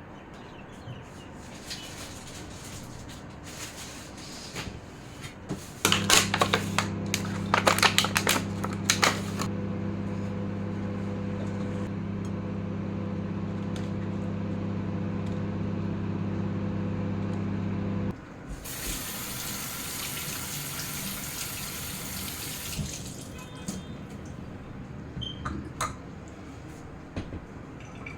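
Kitchen sounds. After a few seconds of light clatter, an electric kitchen appliance hums steadily for about twelve seconds, with a few clicks as it starts, and cuts off abruptly. A tap then runs water for about four seconds, followed by a few small clinks.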